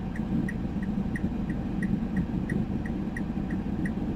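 A car's indicator flasher ticking steadily, about three clicks a second, over a low steady hum inside the car's cabin.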